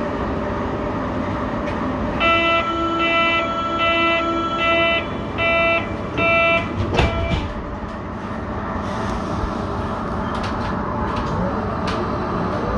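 Berlin U-Bahn HK06 train's door-closing warning: a run of beeps on one pitch lasting about four seconds, then a thud about seven seconds in as the doors shut. Near the end the traction motors start a rising whine as the train pulls away from the platform.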